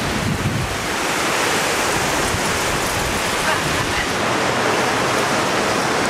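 Strong wind of about 50 to 60 mph blowing through trees and ornamental grass and buffeting the microphone: a steady, dense rush of noise.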